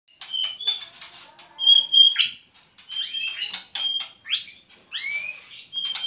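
White-rumped shama (murai batu) singing in full voice: a rich, varied song of clear whistles, rising and falling slurred notes and sharp clicks, in phrases separated by brief pauses.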